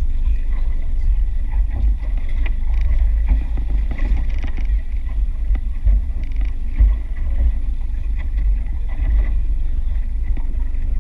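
Steady low rumble of a fishing boat out on the ocean, with wind on the microphone and a few light knocks of gear on the boat.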